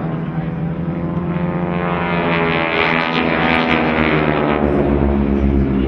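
A formation of Harvard trainer aircraft flying overhead, their Pratt & Whitney R-1340 radial engines and propellers droning. The pitch rises a little and then falls as they pass.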